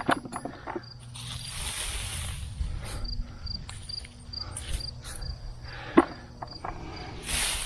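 An insect chirping steadily, a short high pip about twice a second, over rustling of hay mulch being pulled back by hand. A sharp knock about six seconds in.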